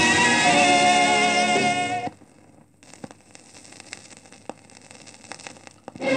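A crackly second-hand 45 rpm vinyl record playing a Hindi film song: the music stops abruptly about two seconds in, leaving a few seconds of stylus surface noise with scattered clicks and crackle, before the music starts again at the very end.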